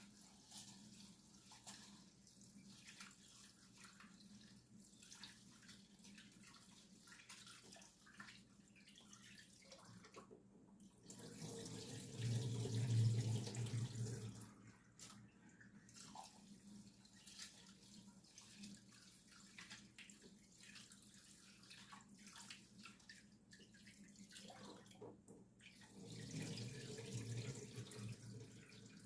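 Tap water running into a sink in two spells, one about twelve seconds in and one near the end, with faint knocks and handling sounds between.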